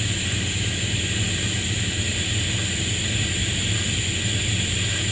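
TIG welding arc on a copper-nickel pipe joint: a steady hiss over a low hum.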